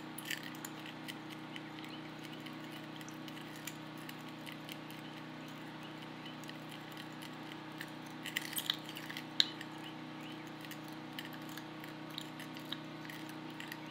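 Plastic measuring spoon stirring in a small glass bowl, dissolving citric acid powder in a little water: faint scattered clinks and scrapes, with a brief cluster of sharper clinks a little past halfway, over a steady low hum.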